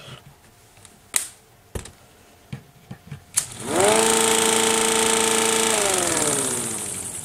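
Homemade K'nex electric air-raid siren (a dual-tone stator/chopper rotor) switching on with a click a little over three seconds in. Its tone winds up quickly, holds steady and loud for about two seconds, then winds down with falling pitch as the rotor coasts, running without scraping. A few clicks and knocks of handling and plugging in come before it.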